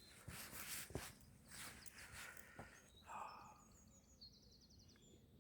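Faint footsteps on a woodland path for the first few seconds, then songbirds singing: scattered chirps and a fast, even trill near the end.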